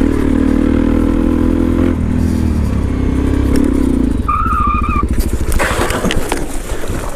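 Dirt bike engine running steadily under throttle, then easing off about two seconds in. Near the end the engine drops to a slow, uneven chug, with scrapes and knocks as the bike goes down in wet mud. A brief high-pitched tone sounds a little past the middle.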